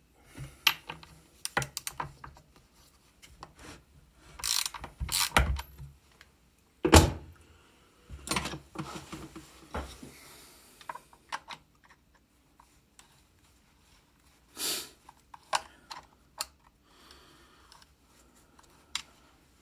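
Scattered metal clicks and knocks from a scrench working the bar nuts and chain tensioner of a Stihl 660 chainsaw as the chain is slackened, with the loudest knock about seven seconds in.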